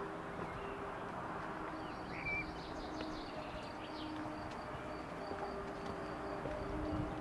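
Outdoor ambience: a steady background hiss with small birds chirping now and then, one clear chirp about two seconds in.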